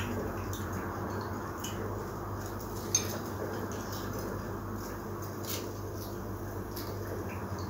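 Small handling clicks of fried bread being pulled apart over a plate, with one sharp click about three seconds in, over a steady low hum.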